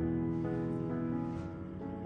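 Instrumental background music with held, overlapping notes.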